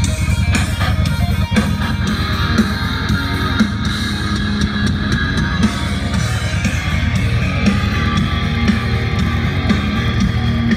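Guitar-driven rock music with heavy bass playing loud through a motorcycle stereo: PYLE marine 6.5-inch subwoofers and 2.25-inch handlebar speakers driven by a 400-watt four-channel amplifier.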